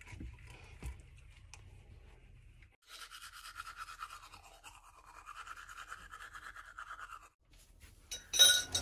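Manual toothbrush scrubbing teeth in quick, rapid strokes, starting about three seconds in and stopping about a second before the end. Near the end comes a short, loud clatter.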